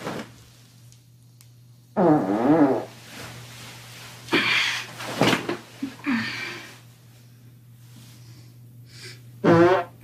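A woman's long, loud fart with a wavering, brassy pitch about two seconds in, and a shorter one near the end, with a few fainter sounds between over a steady low hum.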